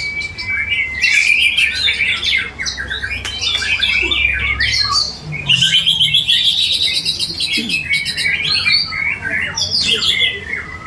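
Several caged white-rumped shamas (murai batu) singing over one another, a dense tangle of whistles, trills and harsh calls as at a songbird contest.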